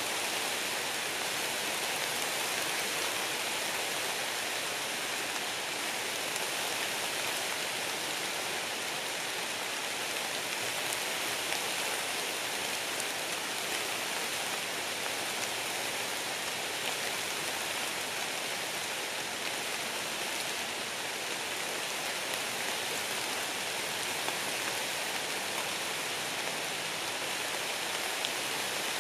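Light rain falling on the leaves of a deciduous woodland: a steady, even patter with a few single drop ticks standing out.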